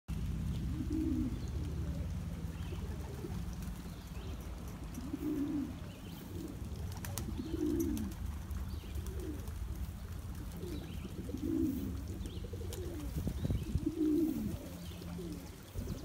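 Pigeons cooing, a low coo repeated every couple of seconds.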